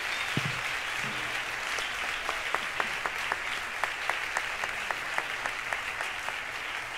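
Theatre audience applauding at the end of a jazz piano trio's piece. From about two seconds in, single claps stand out over the applause at an even rhythm of about four a second.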